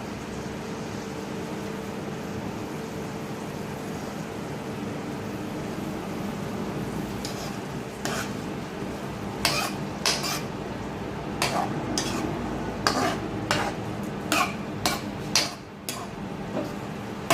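Chicken frying in butter in a hot pan, sizzling steadily over a low steady hum. From about halfway through, a cooking utensil knocks and scrapes against the pan again and again as the chicken is stirred.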